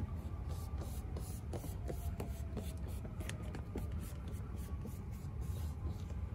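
Hands rubbing and pressing along a sill plate stuck down with 3M double-sided tape, a run of short scuffs and rubs as the adhesive is pressed evenly into place, over a steady low background rumble.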